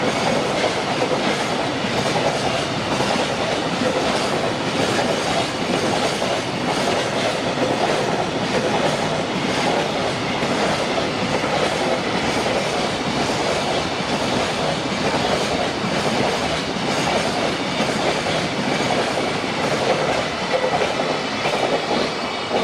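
Freight train's container wagons rolling past: a steady, loud rumble and rattle of steel wheels on the rails, with the last wagon clearing right at the end.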